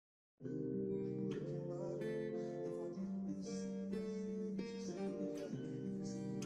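Background music: a strummed acoustic guitar starting up after a moment of silence, about half a second in.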